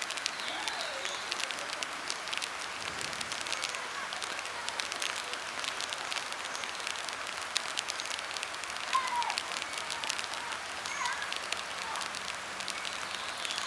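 Steady rain pattering: a dense, even crackle of small drops, with a few faint, short gliding chirps about a second in and again around nine and eleven seconds.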